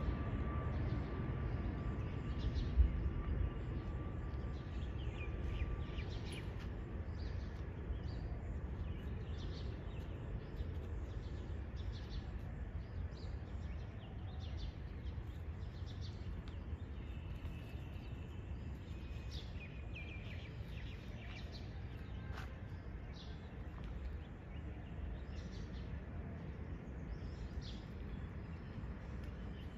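Outdoor ambience: a steady low background rumble with small birds chirping in short, scattered calls throughout.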